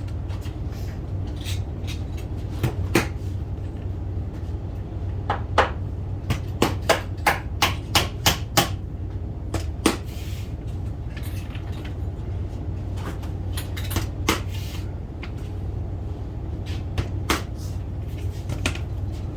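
Hammer striking, driving nails into wooden door trim: scattered sharp knocks, with a quick run of about eight blows, a few a second, about a third of the way in. A steady low hum runs underneath.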